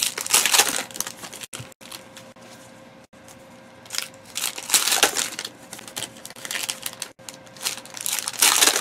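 Trading-card pack wrappers crinkling and cards rustling as packs are torn open and the cards sorted by hand. The crinkling comes in bursts, louder at the start, about five seconds in and near the end.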